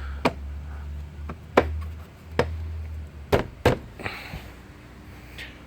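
Plastic air box cover and its retaining clips on a Nissan X-Trail being handled and pressed into place: a handful of sharp clicks and knocks, over a low steady hum that fades about three seconds in.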